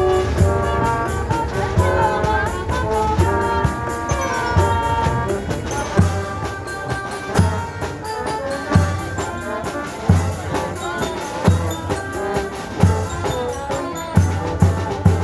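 Music: a stepping melody in the first few seconds, then a steady low beat about every second and a half with a quick ticking rhythm above it.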